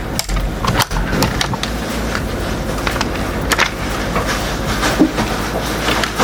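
Clicks and knocks of a diecast toy truck being handled, with its small wheels rolling over a surface.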